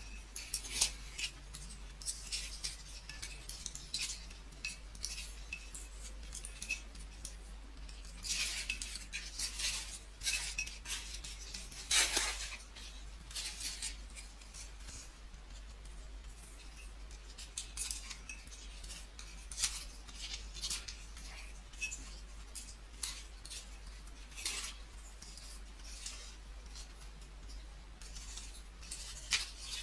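VHS videotape ribbon rustling and crackling as it is worked in knitting, with irregular light clicks and a few longer, louder rustles, one of the strongest about twelve seconds in.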